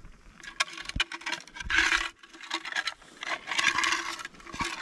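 Moose raking: a series of rough scraping strokes against trees and brush, about one a second with short gaps and sharp cracks among them, made to imitate a bull moose rubbing and thrashing its antlers.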